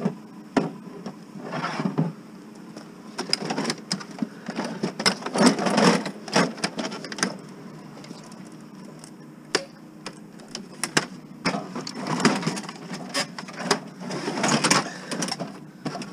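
A large plastic printer being handled: lifted from the bin, carried and pushed into a car's cargo area, giving irregular knocks, clicks, scrapes and rustles, busiest about five to seven seconds in and again near the end as it goes into the car.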